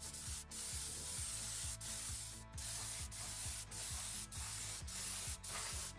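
Gravity-feed spray gun spraying two-part epoxy primer with compressed air: a steady hiss, broken by brief pauses several times as the trigger is let off between passes.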